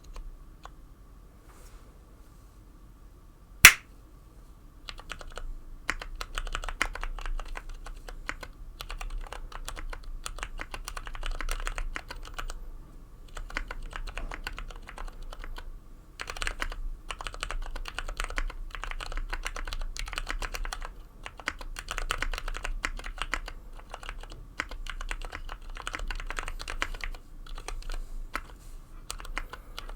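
Typing on a 60% mechanical keyboard with lubed Ergo Clear tactile switches: after a single sharp click about four seconds in, dense runs of keystrokes with short pauses between them. A faint steady low hum runs underneath.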